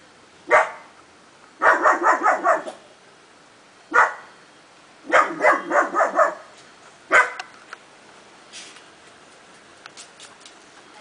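Black puppy barking: single barks about half a second in, at four seconds and at seven seconds, with two quick runs of five or six barks around two and six seconds in. A few faint clicks follow near the end.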